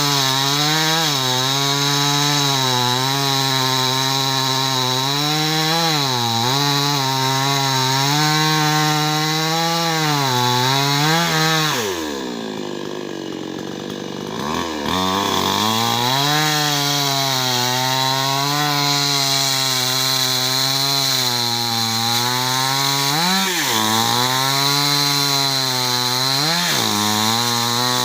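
Two-stroke chainsaw held at high revs cutting into a tree, its pitch dipping briefly several times as the chain bogs down in the wood. About twelve seconds in it drops to idle for a few seconds, then revs back up and cuts on.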